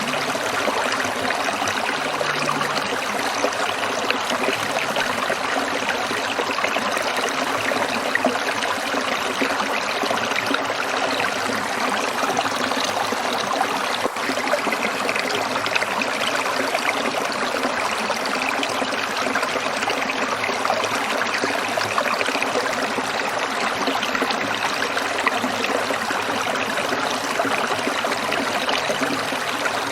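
Small stream trickling over stones, a steady babble of running water.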